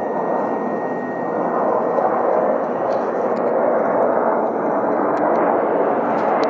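Turbofan engines of an Embraer regional jet landing, a loud steady jet rush with a thin high whine that fades out about two seconds in.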